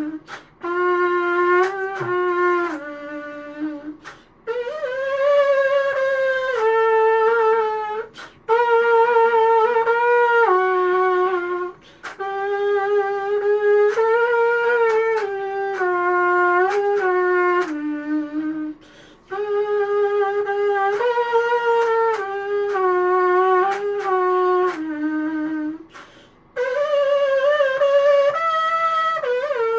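3D-printed rectangular trumpet playing a slow melody of held notes that step up and down, in several phrases with short breaks for breath between them.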